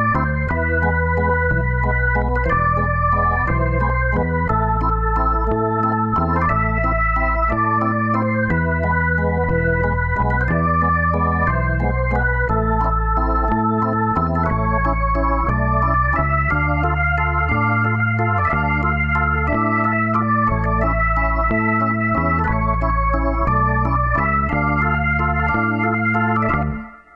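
Background music: an organ-style electronic keyboard tune with a bass line, stepping from note to note at an even pace, which stops abruptly near the end.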